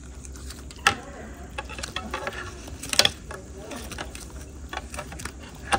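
West Highland white terrier puppies eating mash from a shared dish: irregular small clicks and taps of muzzles and teeth against the dish, with three sharper knocks, about a second in, at about three seconds and near the end.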